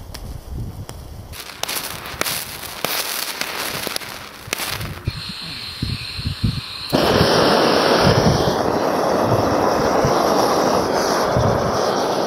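A glowing-hot ferrocerium rod bursts into burning sparks and slag, giving a rapid string of sharp crackles and pops that lasts a few seconds. About seven seconds in, a gas cartridge blowtorch lights with a sudden onset and runs with a steady loud rushing.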